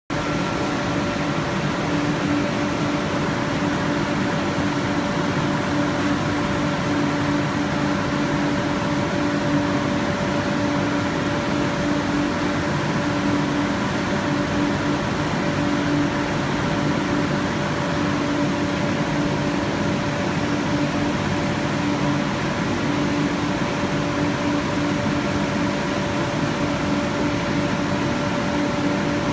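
Conveyorised photo-etching machine running: a steady machine hum with several constant tones over an even hiss.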